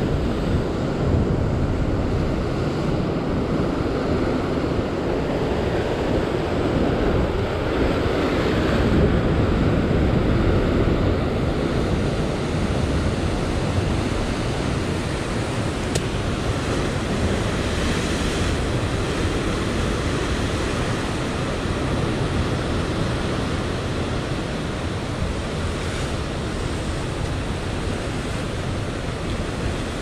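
Rough surf breaking and washing over a rocky shoreline: a steady rush of churning sea water, a little louder about a third of the way in.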